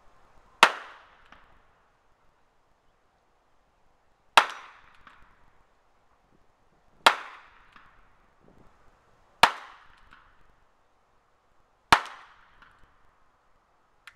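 Armscor (Rock Island Armory) M200 .38 Special revolver firing five single shots of +P reloads, spaced about two to four seconds apart. Each sharp report has a short echo that dies away.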